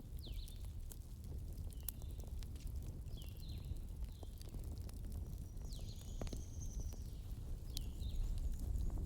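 Wood fire burning, with a steady low rumble and sharp crackles now and then. Short high chirps recur throughout, with a longer thin high whistle about six seconds in.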